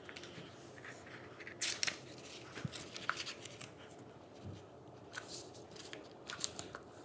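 A sheet of white paper being handled and folded on a tabletop: short, irregular crisp rustles and creasing, loudest about two seconds in and again near the end.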